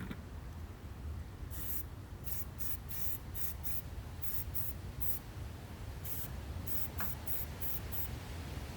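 Aerosol spray-paint can hissing in a dozen or so short bursts, each under half a second, as parts are painted a coat at a time. A low steady hum runs underneath.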